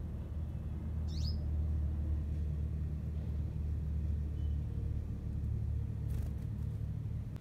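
Steady low rumble, with one short rising bird chirp about a second in and a brief rustle about six seconds in.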